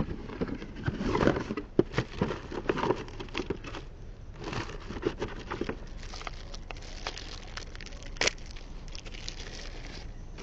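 Rummaging through equipment and plastic packaging: irregular crinkling and rustling with small clicks and knocks, busiest in the first half, and one sharp knock about eight seconds in.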